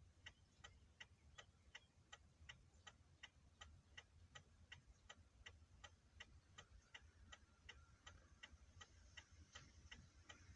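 A car's hazard-light flasher ticking faintly and evenly, about three to four clicks a second, over a low hum.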